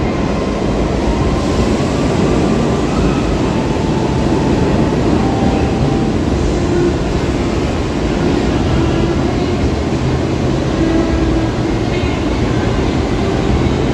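Stainless-steel subway train passing underneath, a steady noise of wheels and running gear on the rails.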